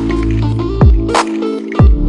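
Background music with a steady electronic beat: deep pitch-dropping bass hits about once a second, with a sharp clap on the off-beats over held synth notes.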